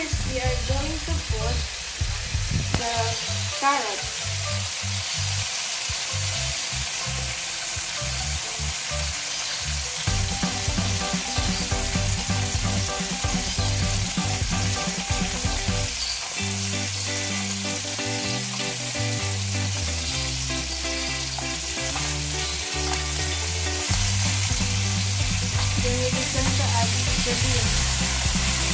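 Wok sizzling as garlic, onion and soy sauce fry, stirred with a spatula. Partway through, carrots and string beans go into the hot wok and are stir-fried, and the sizzle gets louder near the end.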